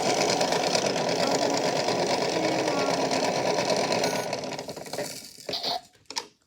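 Washing machine running with a fast, steady rattle, then winding down and stopping about five seconds in, followed by a few clicks.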